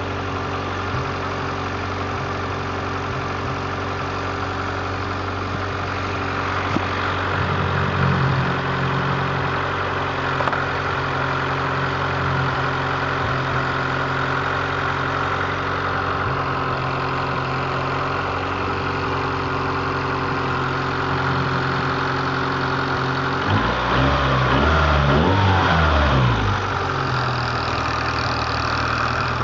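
Honda CRX's B18A1-block, B16-head four-cylinder engine idling with a whining noise, which the owner suspects comes from the timing belt's tension. The engine is blipped briefly about eight seconds in and revved up and back down near the end.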